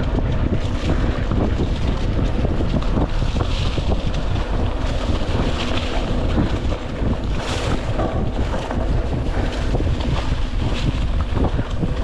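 Wind buffeting a GoPro's microphone as a mountain bike rides a dirt single track, with a steady low rumble of the tyres on the ground and many small rattles and knocks from the bike.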